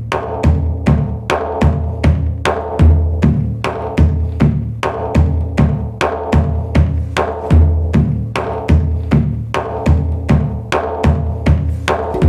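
Live-looped music: an electronic drum-pad beat with kick and snare hits at a steady tempo, about three a second, over a low, pulsing didgeridoo drone.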